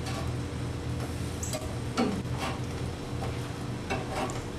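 Metal spatula clicking and scraping against a gas grill's upper rack as tomato slices are flipped, a few light, irregular clicks over a steady low hum.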